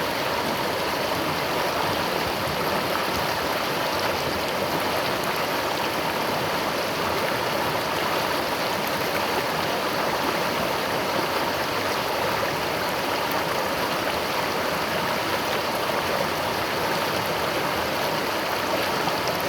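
River water flowing steadily over rocks, a constant rushing and babbling.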